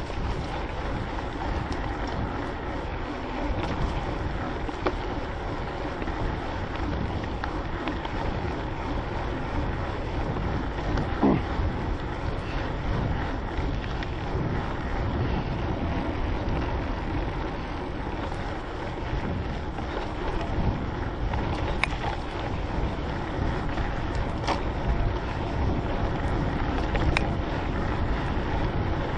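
Mountain bike rolling along a dirt singletrack, picked up by a GoPro action camera: a steady rumble of tyres and rattling bike, with wind buffeting the microphone. A few sharp clicks and knocks cut through, the loudest about eleven seconds in.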